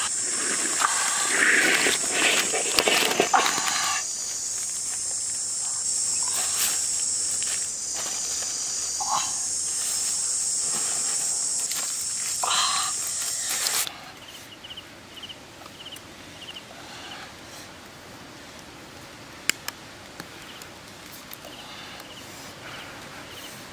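Loud, shrill drone of jungle insects, with a few short rustles and calls on top. It cuts off suddenly a little past the middle, leaving a quieter background with a faint, quick ticking.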